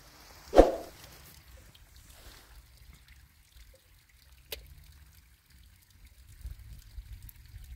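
A single sharp bang about half a second in, with a short ringing tail, followed a few seconds later by a faint click and low rumbling noise near the end.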